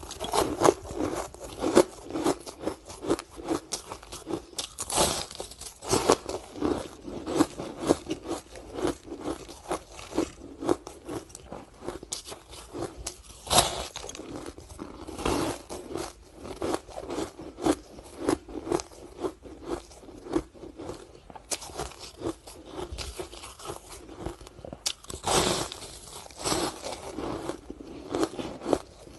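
Sticks of ice being bitten and chewed close to the microphone: continuous irregular crunching and cracking, with a few louder bites.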